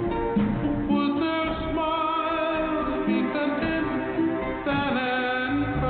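A song with singing and guitar, played over the helicopter's headset intercom.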